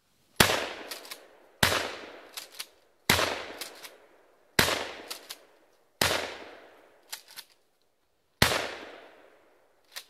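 Remington 12-gauge shotgun fired six times in quick succession, about a second and a half apart with a longer pause before the last shot. Each shot rings away for about a second, and short clacks come between shots.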